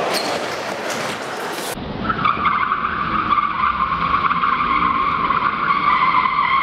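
Stunt scooter wheels rolling on a plywood skatepark surface: rough rolling noise for about the first two seconds, then a steady, loud whirring hum with a low rumble underneath.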